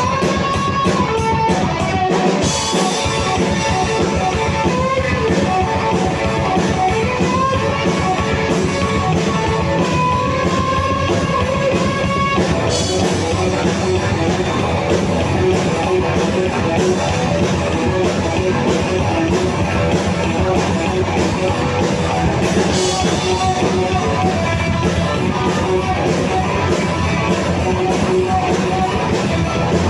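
Live rock band playing with electric guitar and drum kit, loud and steady. Cymbal crashes come about two and a half seconds in, about twelve seconds in and about twenty-three seconds in.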